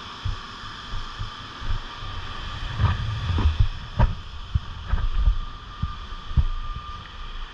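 Rain falling steadily as an even hiss, with gusts of wind buffeting the microphone in irregular low thumps, the strongest a little past the middle.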